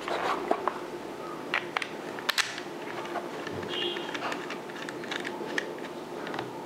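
Scattered small plastic clicks and taps as a GoPro Hero 12 action camera and its mount are handled and fitted together, a few sharper clicks about two seconds in, over a steady hum.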